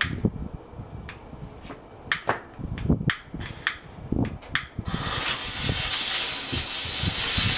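A long-nosed lighter clicking about ten times without catching, then a firecracker fuse lit and hissing steadily from about five seconds in.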